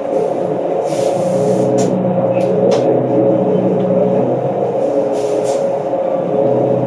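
Interior running noise of a 2012 New Flyer C40LF compressed-natural-gas transit bus in motion: a steady engine and drivetrain drone with a held whine, and a few brief rattles.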